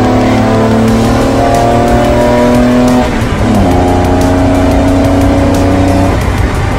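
Opel Omega 3000 24V race car's straight-six engine pulling hard under acceleration, its pitch climbing. About three seconds in it dips for an upshift, then climbs again before backing off near the end.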